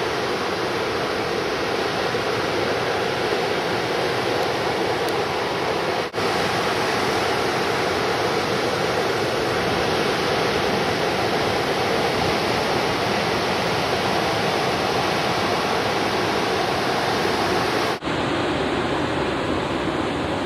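Steady rush of breaking ocean surf, with two brief dropouts about six seconds in and near the end, after which it sounds duller.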